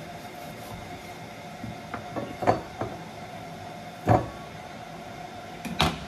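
A knife knocking on a wooden cutting board as raw beef is sliced: a few knocks around two and a half seconds in, a sharper one about four seconds in and another near the end, over a steady background hum.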